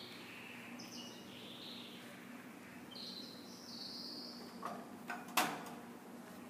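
Canaries chirping in long, high trilled stretches, then three sharp taps about five seconds in, the last the loudest, over a faint steady hum.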